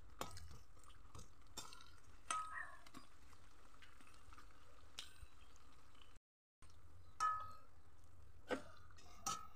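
Metal slotted spoon clinking against the sides of an aluminium kadai while turning and lifting frying sesame pitha: about seven sharp, short-ringing clinks at uneven intervals.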